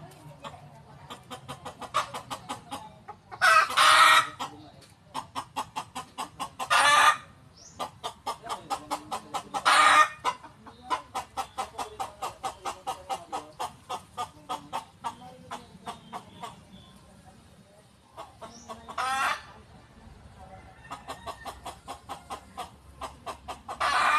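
A chicken cackling: long runs of quick, evenly spaced clucks, several times rising into a louder squawk.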